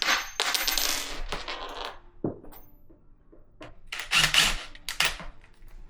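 Screws being driven into chipboard panels with a cordless drill-driver: a run of about two seconds at the start, then two short runs about four and five seconds in, with light knocks of the panels being handled in between.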